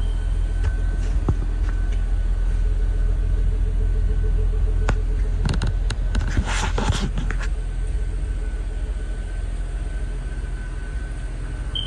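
A car engine idling steadily, a continuous low rumble. A few sharp clicks and a brief rustling burst of handling noise come about six to seven seconds in.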